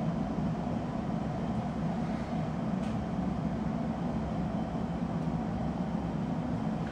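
Steady low mechanical hum with a faint hiss, unchanging throughout.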